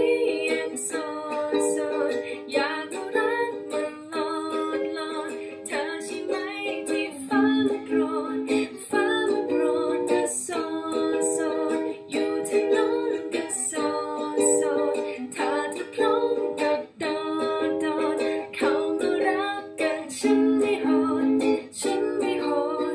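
Ukulele strumming chords in a quick, even rhythm, changing chord every second or two.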